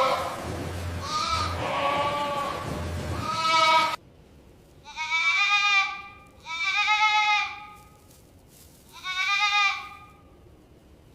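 Goats bleating again and again. The first few bleats come over a low hum and background noise, which drop away suddenly about four seconds in; three separate bleats follow against a quiet background.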